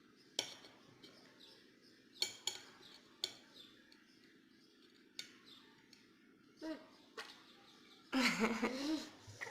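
A utensil clinking several times against a mixing bowl while pancake batter is stirred, with birds chirping faintly in the background. A brief voice sounds near the end.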